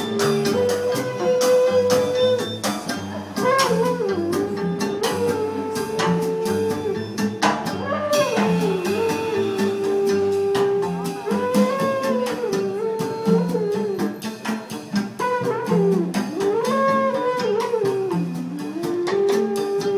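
Small jazz band playing live: a sliding lead melody over a drum kit and double bass.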